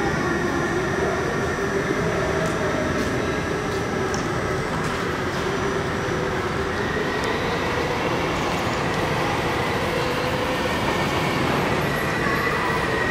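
Electric go-karts running on an indoor track: a steady rolling rumble of tyres and motors with a faint whine that slowly rises and falls in pitch.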